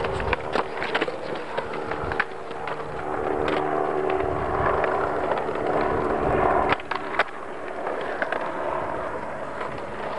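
Skateboard wheels rolling over concrete paving slabs, with sharp clacks of boards popped and landed in flatground tricks: several in the first couple of seconds and two close together about seven seconds in.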